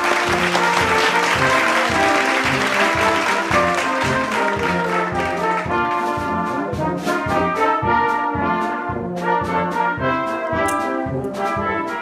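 Upbeat background music led by brass instruments over a steady drumbeat.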